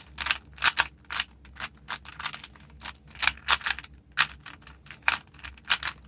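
Plastic 3x3 Rubik's Cube being turned by hand, its layers clicking and clacking as they are twisted: an uneven run of sharp clicks, several a second.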